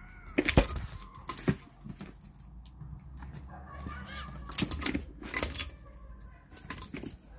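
A few sharp clicks and knocks with light rustling as a pet Eurasian eagle-owl shifts about on a windowsill, holding a plush toy in its beak and its leather jesses moving with it.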